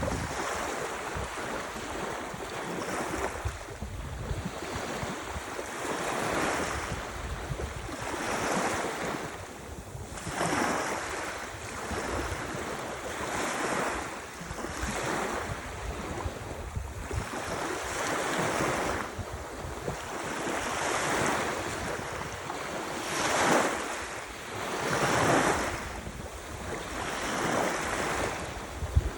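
Ocean surf: waves breaking and washing in, one swell of noise every two to three seconds, with a low wind rumble on the microphone.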